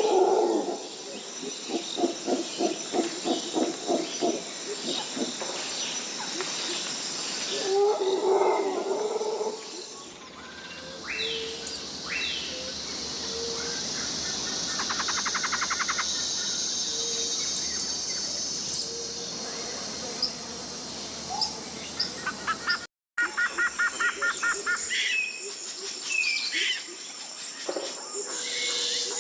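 Tropical rainforest ambience: a steady high-pitched insect drone under scattered bird whistles and chirps. In the first ten seconds there is a rapid series of low pulsed calls. The background changes abruptly about ten seconds in and again with a brief dropout past the twenty-second mark, where one recording is cut to the next.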